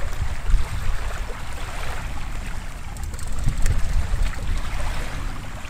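River water sloshing and splashing over a steady, uneven low rumble, with a few sharp clicks about three and a half seconds in.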